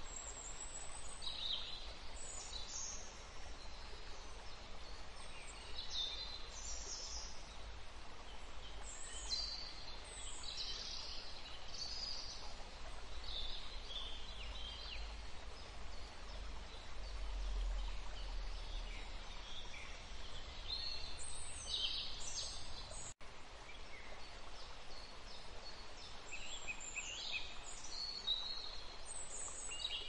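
Rainforest ambience: a steady hiss of background noise under many short, overlapping bird calls and chirps. The sound drops out for an instant about three-quarters of the way through.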